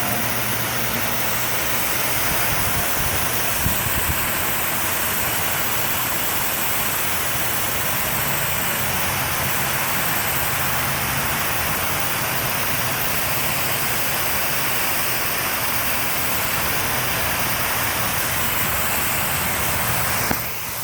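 Pressure washer running with a steady motor hum under the hiss of its high-pressure water spray, rinsing cleaning chemical off a surface. The spray drops out briefly near the end.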